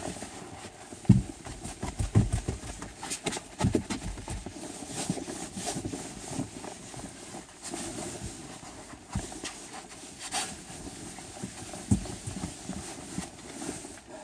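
Magic eraser scrubbing car window glass: irregular rubbing strokes with scattered knocks, the sharpest about a second in.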